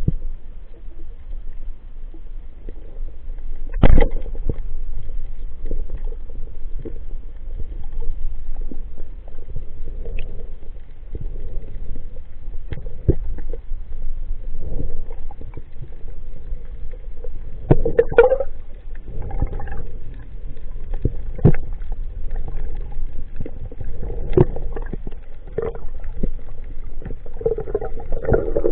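Underwater sound picked up by a waterproof camera: a steady low rumble of moving water with scattered clicks and knocks, the loudest a sharp knock about four seconds in.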